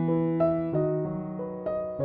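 Background music: soft piano, slow notes over a held bass.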